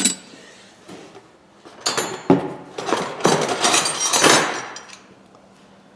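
Loose steel hand wrenches clinking and clattering against one another as they are rummaged through in a box, in a few bursts with the longest near the middle.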